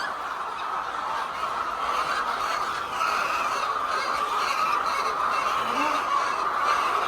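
A large flock of laying hens clucking and calling all at once, a dense steady din of many overlapping bird voices.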